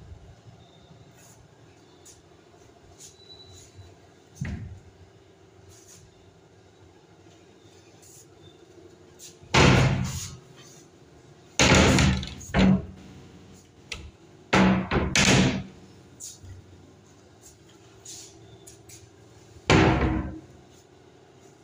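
Wooden wardrobe doors being swung and shut, giving a few loud knocks and bangs several seconds apart, in clusters from about halfway through to near the end.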